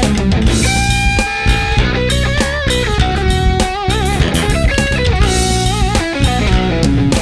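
Rock music with electric guitar and drums, a lead line with held, wavering notes over a steady beat.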